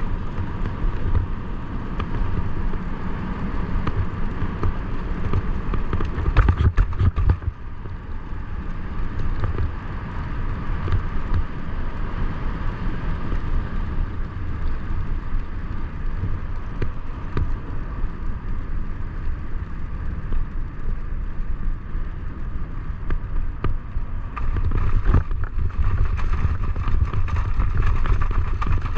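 Steady rolling of a husky-drawn training rig's wheels on a path, with wind rumbling on the microphone; louder stretches about six seconds in and again near the end.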